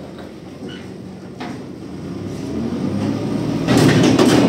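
Heavy sawmill machinery running. It builds from a low rumble to a loud, harsh rush over the last second.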